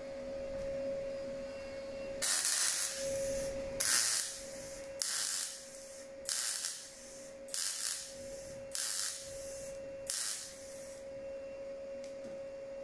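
MIG welder arcing in seven short bursts, each under a second, about one every 1.3 seconds, laying weld into thin, rusty Ford Transit body metal. A steady hum runs underneath.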